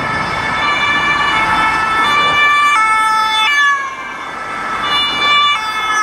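Two-tone sirens of a convoy of German police vehicles, the familiar alternating high-low call switching pitch about every three-quarters of a second, with more than one siren sounding at once out of step. Road and engine noise of the passing vehicles underneath.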